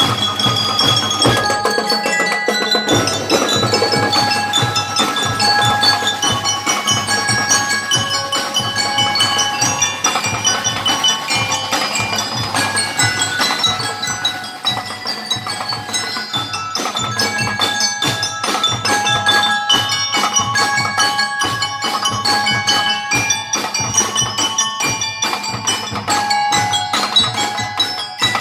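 Drum and lyre band playing: mallet-struck keyboard bar instruments ring out a quick, bright melody over drums beating a steady rhythm.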